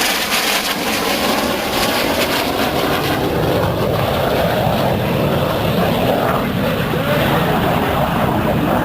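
Red Arrows' BAE Hawk T1 jets flying past, their Rolls-Royce Adour turbofans making a continuous jet roar. About three seconds in, the high hiss fades and a deeper rumble builds.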